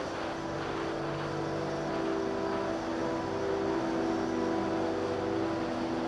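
An RC plane in flight heard from its onboard camera: the motor and propeller drone on steadily under a constant rush of air.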